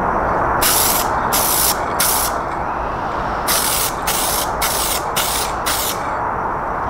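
Aerosol rattle can of silver automotive touch-up paint spraying in short bursts: three quick bursts, a pause of about a second, then five more. A steady background rush runs under the bursts.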